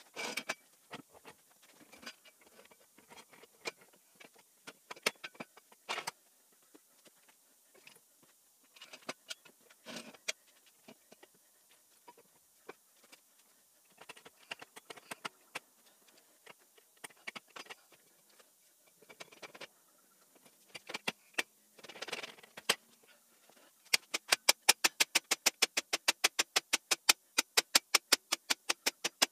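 Steel engine-hoist legs and casters being handled and fitted together on concrete, with scattered knocks and scrapes of metal. In the last few seconds a mallet strikes the square-tube steel frame in a fast, even run of taps, several a second; these are the loudest sounds.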